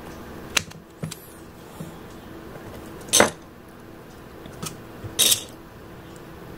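Scattered clicks and knocks of an 18650 lithium-ion cell being handled and pressed into a plastic battery holder. The loudest knock comes about three seconds in, with a few smaller clicks and a short scrape a little after five seconds.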